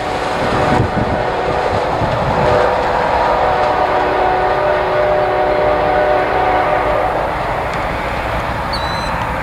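CSX office car special passenger train going away at speed, its wheels rolling on the rails, while the locomotive's horn sounds one long chord of several notes that stops about two seconds before the end.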